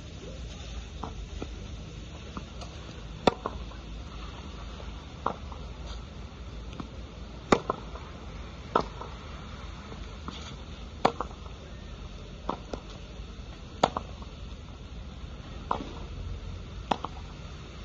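A tennis ball struck with a racket and rebounding off a practice backboard on a wet court: a dozen or so sharp pops, one every second or two, some in quick pairs, over a steady low rumble.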